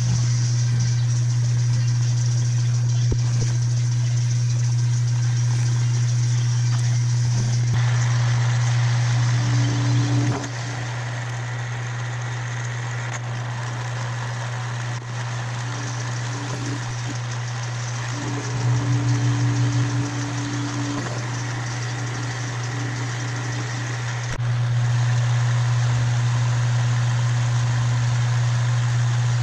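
Metal lathe running with a steady low hum as it turns a short bar stock part in its chuck. The hum drops quieter about a third of the way through, a higher tone comes and goes in the quieter stretch, and the hum returns to full level near the end.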